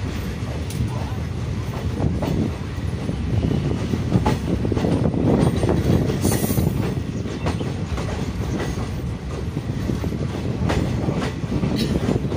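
Passenger train running on the track: a steady low rumble, with irregular sharp clicks of the wheels going over rail joints.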